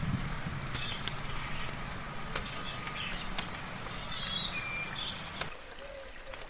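Scattered short bird chirps over a steady hiss of soft rain, with occasional sharp drip ticks. A low steady hum underneath cuts off suddenly about five and a half seconds in.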